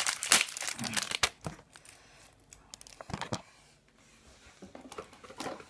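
Candy packaging crinkling and rustling as it is handled. There are quick sharp rustles in the first second and a half, a couple more about three seconds in, and fainter ones near the end.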